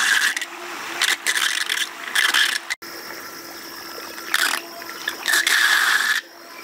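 Water being pumped up a plastic pipe out of a shallow pool, rushing and gurgling in irregular bursts over a faint steady hum.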